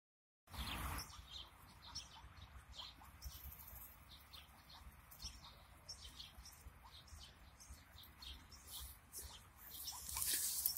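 Ducks foraging in tall grass, pulling at grass seed heads with their bills: faint rustling with many soft, quick ticks, over a low rumble of wind on the microphone. The rustling grows louder near the end.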